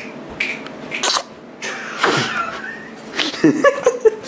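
A man coughing close to the microphone in a few short bursts, then making wordless voiced sounds about three seconds in.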